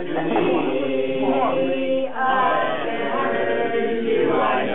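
A group of voices singing together, several pitches sounding at once in long, held notes.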